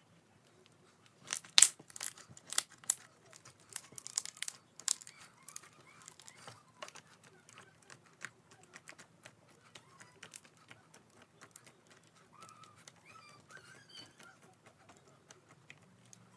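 Slime being poked and squeezed by hand, giving a run of sharp crackling clicks and pops, densest and loudest in the first few seconds and thinning out after.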